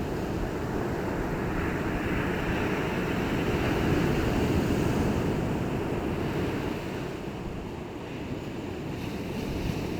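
Sea waves washing onto a shore: a steady rushing surge that builds to a peak about halfway through, falls away, then starts to build again near the end.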